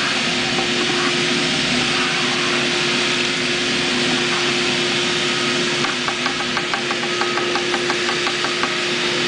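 A machine running steadily, a constant hum with a hiss over it. About six seconds in, a fast, even run of light ticks joins it, roughly five a second.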